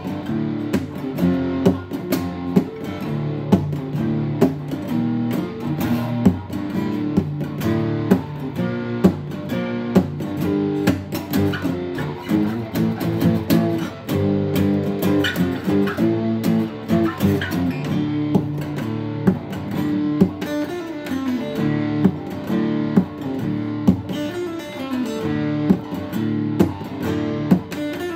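Acoustic guitar being played, a continuous run of plucked notes and strummed chords.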